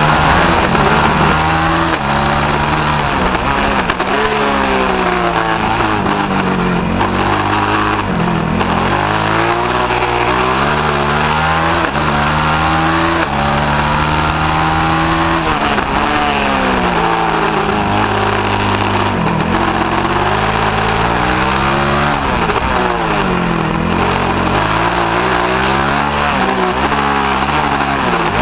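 Formula SAE race car's engine heard onboard, its pitch climbing through the gears and falling back again and again as it accelerates and slows for corners on hot laps, with air rush over it.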